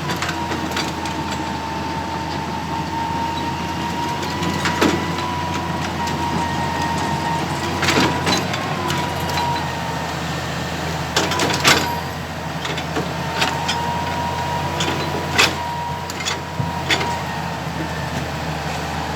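Excavator's diesel engine running steadily with a high hydraulic whine over it, and several sharp knocks and clanks scattered through, the loudest a cluster about two-thirds of the way in.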